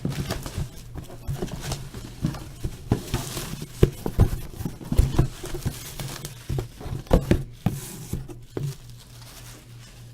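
Hands opening and handling a sealed trading card box: plastic wrap and cardboard crinkling and tearing, with irregular taps and knocks, over a steady low hum.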